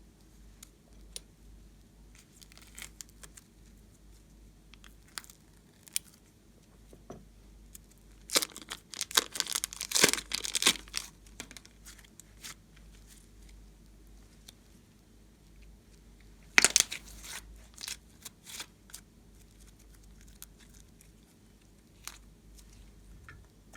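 Slime being pressed and stretched by hand, giving sharp crackling and popping sounds, densest in a burst about a third of the way in and again in a shorter burst later on.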